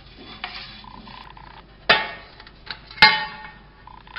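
A metal springform cake pan knocking sharply twice against a stone countertop, about a second apart, the second knock the louder, with soft brushing strokes of a pastry brush greasing the pan around them.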